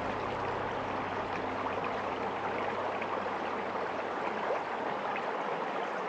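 Stream water flowing, a steady, even rush.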